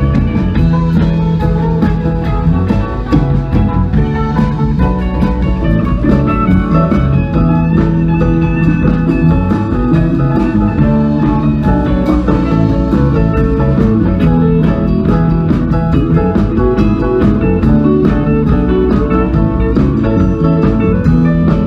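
Live rock band playing: electric guitars, electric bass, keyboard and drum kit, at a steady loud level with a regular drum beat.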